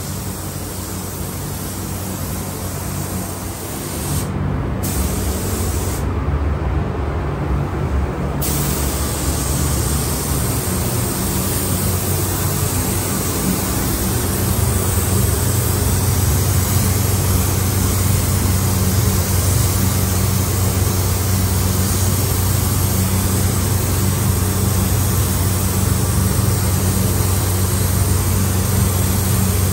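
Gravity-feed automotive spray gun hissing as clear coat is sprayed onto a truck's body. The hiss stops twice, briefly, in the first several seconds, over a steady low hum.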